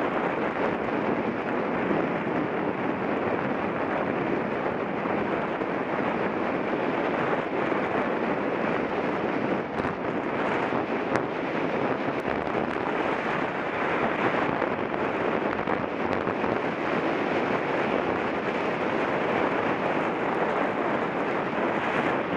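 Steady rush of wind across the microphone of a mountain bike rider's camera while riding, with a few faint clicks.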